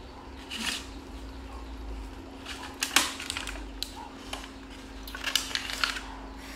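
Thin clear plastic clamshell fruit container being handled and opened, crackling and clicking in clusters of sharp crinkles, the loudest about three seconds in. A faint steady hum runs underneath.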